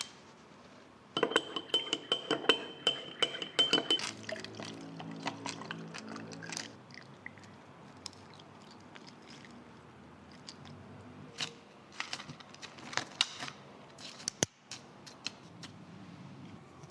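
Cafe drink-making sounds. First comes a few seconds of rapid clattering of glassware and utensils with a steady high tone under it. Then liquid is poured into a cup or glass, and near the end come scattered clinks and knocks of glass and utensils.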